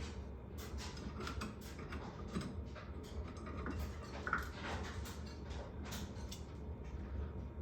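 Irregular clicks and taps of hard parts being handled and fitted together during hand assembly, over a steady low hum.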